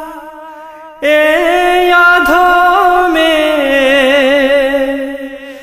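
Wordless a cappella vocal interlude of a Bangla gojol: a voice sings a held, wavering melody without words, entering about a second in after the previous sung line fades out.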